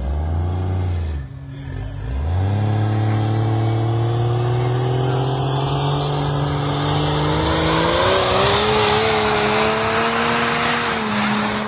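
Car engine revving briefly, then accelerating hard, its pitch climbing steadily for several seconds before dropping off near the end.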